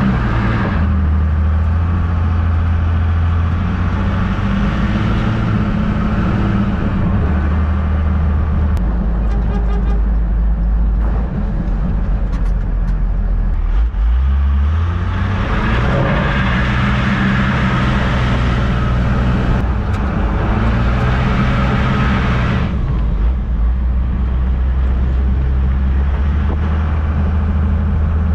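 1991 Dodge Ram 250's first-gen Cummins 12-valve inline-six turbo diesel running under load on the road, its engine note dropping and climbing again several times as the truck is driven.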